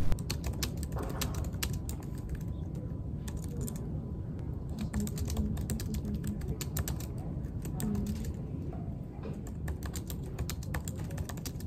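Typing on a computer keyboard: quick, irregular key clicks over a low, steady background hum.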